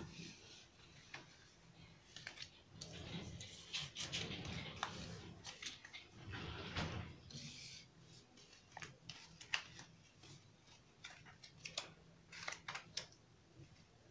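Playing cards being gathered up from a tabletop and handled: a scatter of light clicks and snaps, with a denser stretch of sliding and rustling a few seconds in.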